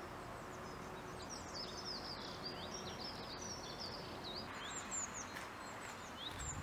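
Several small songbirds chirping and singing, many quick rising and falling notes, over a steady outdoor background hiss. A few low thumps near the end.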